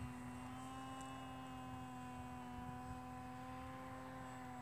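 Faint, steady hum of several pitches that drift slowly up and down: the electric propeller of the Heliceo Foxy Slim VTOL drone in cruise flight.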